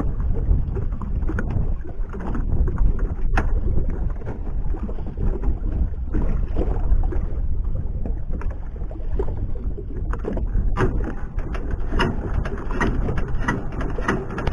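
Small motorboat under way while trolling: its engine runs steadily under rushing wind and water noise, with a few light knocks in the last few seconds.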